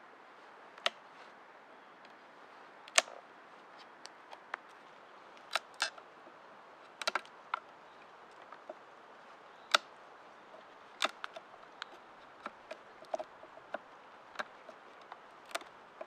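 A fixed-blade knife shaving bark off a thin green wooden pole, each stroke a short sharp click or snap, some in quick pairs, at irregular intervals of about one a second.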